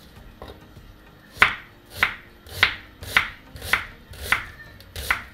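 Kitchen knife slicing a halved onion on a wooden cutting board. From about a second and a half in, there is a steady run of cuts, about two a second, each a short slicing swish that ends in a knock of the blade on the board.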